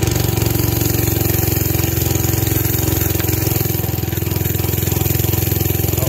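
Small minibike engine running steadily as the bike is ridden off, a fairly even low drone with little change in pitch.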